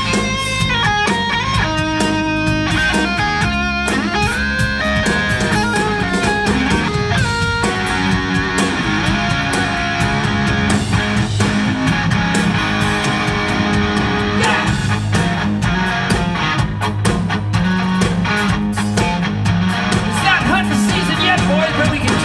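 Live rock band: a distorted electric guitar plays single-note lead phrases with bends over drums and bass, and about eight seconds in the band moves into fuller, denser playing with heavier drumming.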